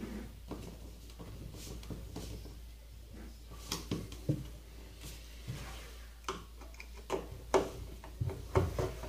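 Light clicks and knocks against the panels of a flat-pack wardrobe frame as shelf support pins are pushed into their holes and a screwdriver is handled, with sharper knocks coming more often near the end.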